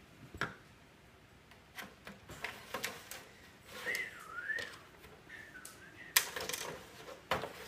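Scattered light clicks and knocks of plastic hockey figures and pieces being handled and set down on a Playmobil tabletop hockey rink, the loudest about six seconds in. A short wavering whistle-like tone comes in near the middle.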